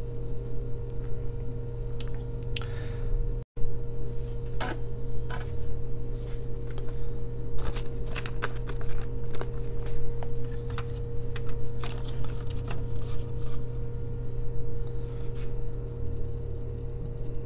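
Steady low hum with a steady higher tone in it, with scattered light clicks and taps; the sound breaks off for an instant about three and a half seconds in.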